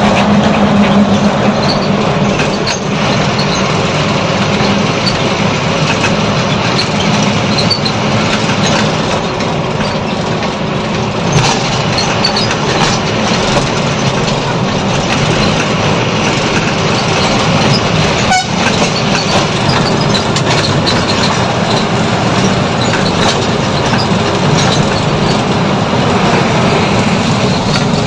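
Steady engine drone and road noise of a truck cruising down the highway, heard from inside its cab, with a constant rattle.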